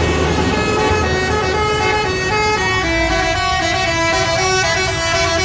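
A bus's telolet multi-tone musical horn playing a melody: several notes sounding together and stepping from pitch to pitch, loud and unbroken, over the low rumble of the bus engine.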